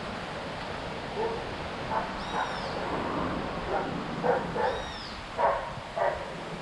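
A dog barking, several short barks from about a second in until near the end, over a steady rush of wind or road noise. High, arching chirps come three times.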